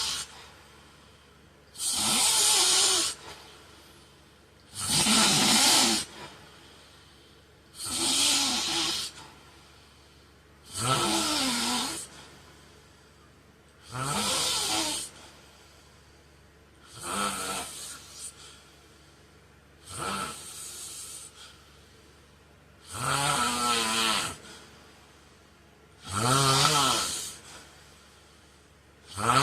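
A man snoring steadily in his sleep, about one snore every three seconds. Each snore lasts about a second, with a pitch that wavers up and down.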